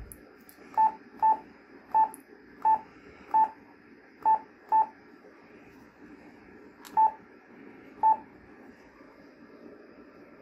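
Yaesu HF transceiver's key-press beeps: nine short identical beeps at uneven intervals as its front-panel buttons are pressed, over faint steady hiss.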